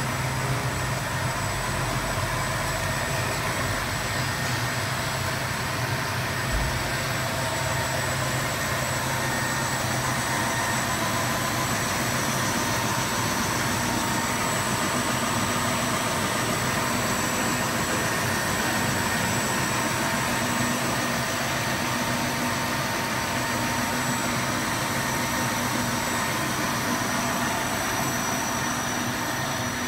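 Jagenberg Diana folder-gluer running: a steady, dense mechanical noise from its belts and rollers, with a few steady hum tones underneath.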